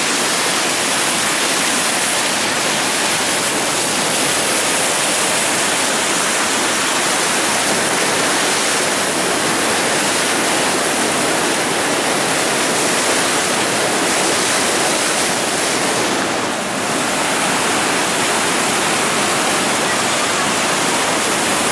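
Muddy floodwater pouring over a concrete weir and churning into rough white water: a steady, loud rush.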